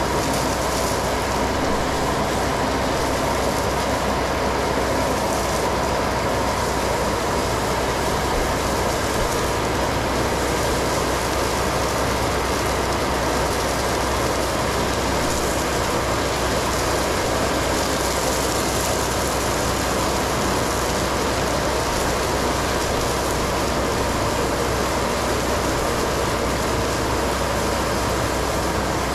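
Stone slinger truck throwing 3/4-inch crushed stone down the trail: a steady shower of gravel landing on the pile, over the machine running steadily.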